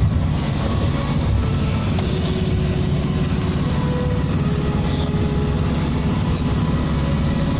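Steady low rumble of a running engine, like the noise inside a moving vehicle, holding an even level without rising or falling.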